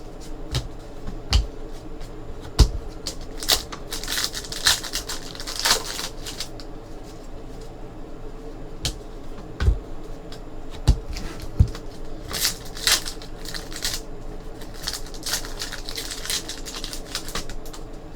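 Trading card packs being opened and the cards handled: foil wrappers crinkling and tearing in several spells, cards sliding against each other, and a few sharp knocks of packs or cards set down on the table.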